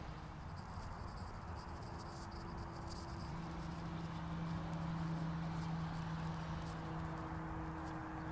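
Outdoor ambience: a steady low hum that swells through the middle, over faint irregular high clicking.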